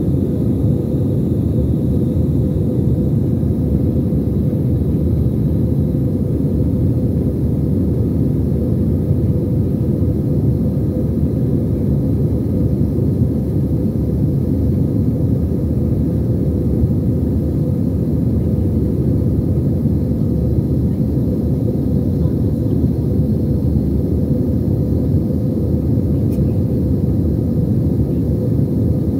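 Steady engine and airflow noise in a jet airliner's passenger cabin in flight: a dense, even low rumble with a faint steady hum above it, unchanging throughout.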